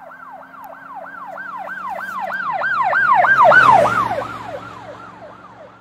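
Emergency vehicle siren in a fast yelp, about three falling sweeps a second, over a low steady hum. It swells to its loudest about three and a half seconds in, then fades as it passes by, the hum dropping slightly in pitch as it goes.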